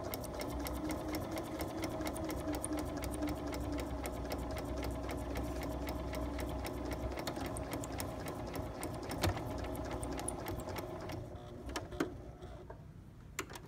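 Electric sewing machine stitching steadily through paper, its motor humming under rapid needle clicks. It slows and stops about eleven seconds in, followed by a couple of separate clicks.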